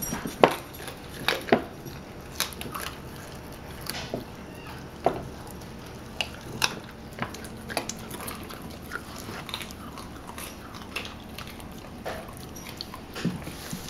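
Collie puppies chewing chicken feet: irregular sharp crunches and cracks as they bite down, a few per second.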